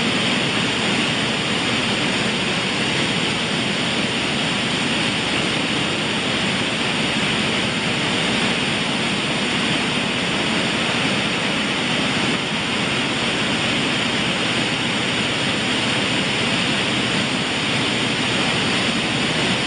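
Buckwheat grading and shelling machinery running: a steady, dense rushing noise with no breaks or distinct knocks.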